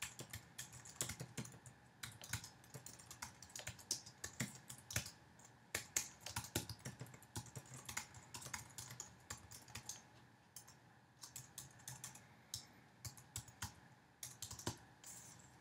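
Typing on a computer keyboard: a run of quick, irregular keystrokes with brief pauses.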